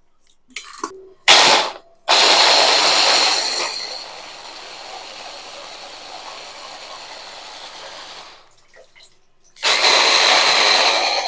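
Electric mini chopper grinding roasted tomatoes, chillies, onion and coriander into a wet chutney. After a sharp knock about a second in, the motor runs with a high whine for about six seconds, loud at first and then settling lower as the contents break down. It stops, then starts again about two seconds later.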